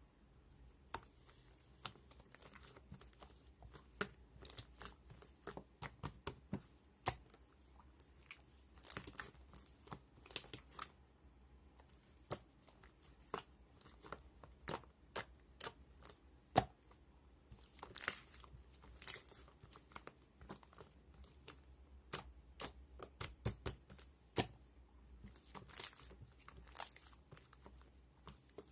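Hands squishing and stretching slime: an irregular stream of small sharp clicks and pops, with a few longer crackling, tearing stretches.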